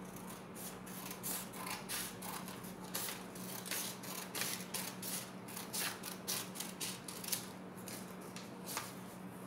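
Scissors snipping through folded construction paper in a quick run of short cuts, about four a second, which stops near the end with one last snip.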